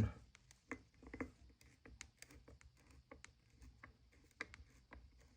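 Faint, irregular small clicks and taps: a small Phillips screwdriver working a tiny screw on a full-metal airsoft M1911 pistol, with light handling of the metal parts.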